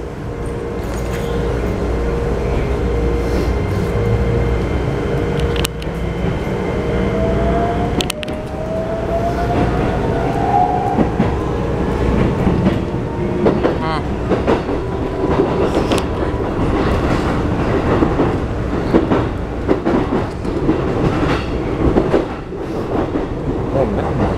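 Cabin running sound of a Keikyu New 1000 series train with a Toyo IGBT-VVVF inverter: the inverter and traction motor whine rises in pitch from about six to eleven seconds in as the train gathers speed, over wheel-on-rail rumble and the clickety-clack of rail joints.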